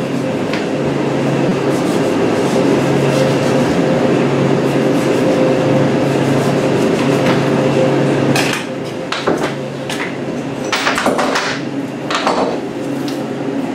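A steady machine hum fills the first part, then drops about eight and a half seconds in, followed by a metal chain clattering and knocking several times against a ribbed metal floor as the skinned deer hide is unhooked from it.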